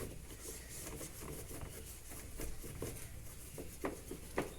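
Faint rubbing and a few light taps as a cloth wipes a washing machine's control panel.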